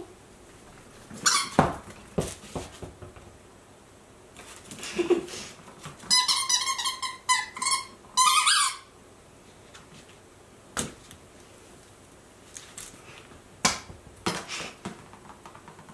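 Squeaky dog toy squeaked over and over in quick succession for about three seconds midway, with a few sharp knocks before and after.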